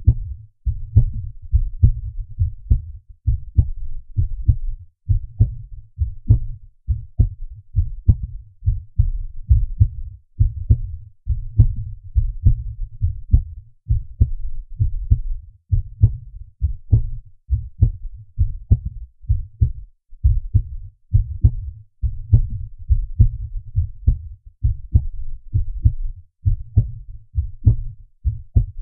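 Human heartbeat: a steady, regular rhythm of low, dull thumps.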